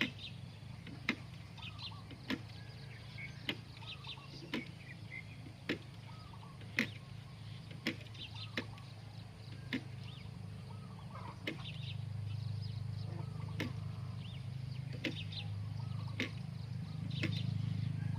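A hand tool chopping into damp soil in steady strokes, about one strike a second. Birds chirp between the strokes, and a low hum grows louder in the second half.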